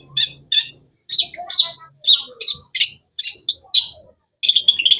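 Long-tailed shrike (cendet) singing: a series of sharp chirps, about three a second, that runs into a quick, dense chatter near the end.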